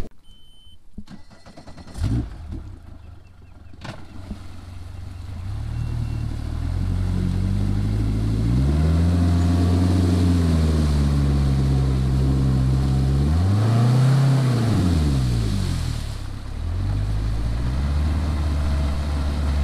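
Mercury outboard main motor on an aluminium bass boat coming in about four seconds in after a few clicks, then running with its pitch rising and falling as the throttle is worked, with a quick rev up and back down near the middle and a brief dip before it settles to a steady run. It is under load, driving the boat out of thick reeds.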